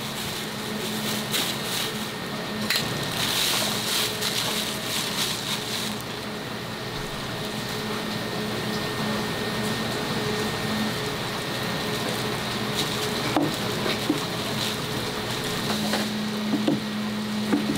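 A thin plastic bag crinkles as it is knotted shut, over a steady low hum. Near the end, a kitchen knife gives a few short taps against a plastic cutting board as it slices cooked pork offal.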